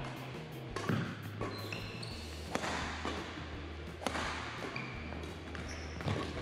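Badminton rally: four sharp racket strikes on the shuttlecock, about one and a half to two seconds apart, with short high squeaks of court shoes on the wooden floor between them, over a low steady hum.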